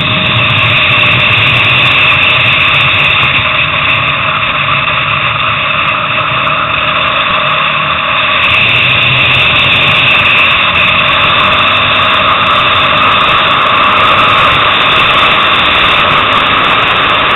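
Onboard sound of a motorcycle at track speed: the engine running hard under a steady rush of wind over the microphone, getting slightly louder about halfway through.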